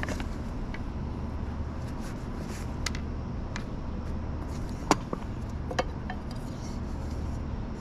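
Metal camping cookware being unpacked and handled on a wooden table: a few light clinks and knocks, the sharpest about five seconds in, over a steady low hum.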